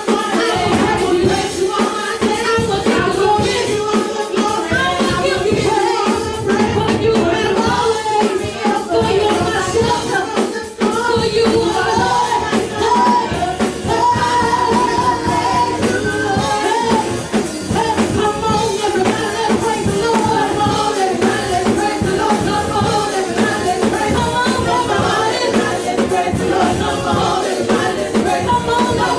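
Live gospel praise-and-worship music: voices singing together over a band with a steady beat.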